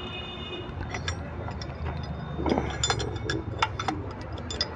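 Scattered light metallic clinks and taps as a steel shift fork is set against the gears and bearing of a tractor PTO gearbox, coming thickest from about one to four seconds in.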